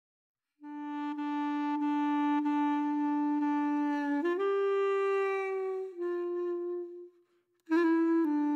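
Background music: a solo reed woodwind melody of long held notes. It starts about half a second in, steps up in pitch partway through, and pauses briefly near the end before resuming.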